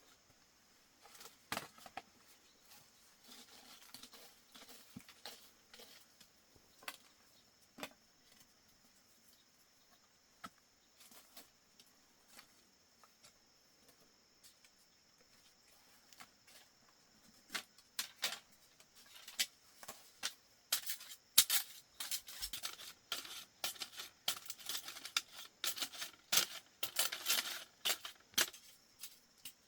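Irregular light clicks and taps of small things being handled, sparse at first and coming thick and faster over the last ten seconds or so.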